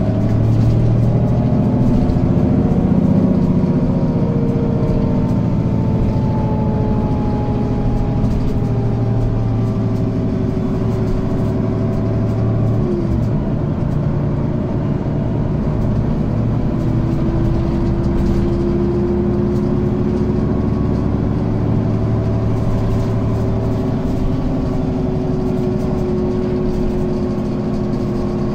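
Mercedes-Benz Citaro O530G articulated diesel bus with a Voith DIWA 3 automatic gearbox, heard from on board while driving: a steady engine rumble with a drivetrain whine. The whine's pitch falls slowly, dips sharply about thirteen seconds in, then rises and holds steady.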